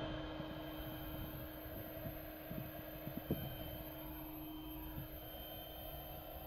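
A steady low mechanical hum with a faint steady tone that fades out about five seconds in, and a few faint soft knocks.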